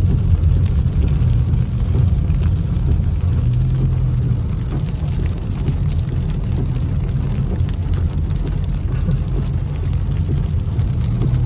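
Inside a moving car in heavy rain: steady low rumble of the engine and tyres on the wet road, with rain hitting the roof and windshield.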